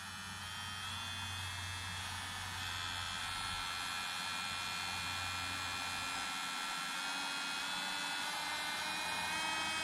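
Tomight portable electric nail drill running with no load, a steady high motor whine whose pitch steps up several times as the speed is turned up toward its top setting.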